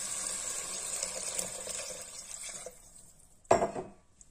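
Water pouring into a stainless steel pot of fried minced meat, stopping about two and a half seconds in. About a second later comes one sharp knock, the loudest sound.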